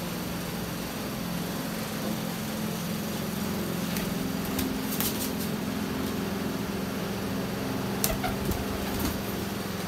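Steady mechanical hum, like a fan or cooler running, with a few brief clicks about four, five and eight seconds in.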